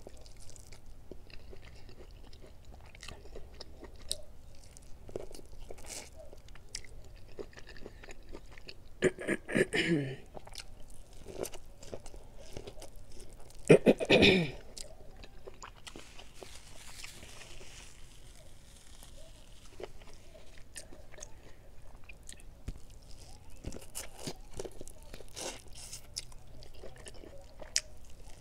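Close-up mouth sounds of biting and chewing boiled corn on the cob: small wet clicks and crunches throughout, with two louder short sounds that fall in pitch, about ten and fourteen seconds in.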